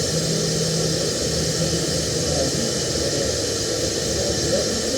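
TIG welding arc running steadily on a root pass: a constant hiss with a faint low hum underneath.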